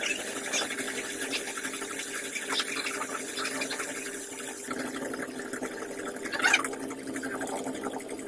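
Metal lathe running while the cutting tool turns a bearing seat on a spinning metal shaft: a steady machine hum and whine with scratchy crackles of metal being cut, and one louder crackle about six and a half seconds in.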